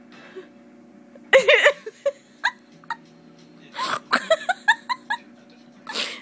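People laughing in short bursts: a loud burst, then a run of quick chuckling pulses, then another near the end, over a steady low hum.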